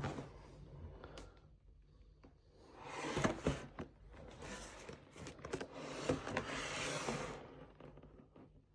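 Packaging being handled and rustled: cardboard and plastic wrapping crinkling with small clicks and taps, in two spells, about three seconds in and again around six seconds in.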